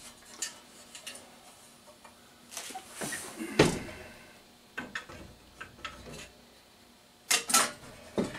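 Knocks and clatter of objects being handled and moved about, with one heavy thump about three and a half seconds in and two sharp clicks near the end.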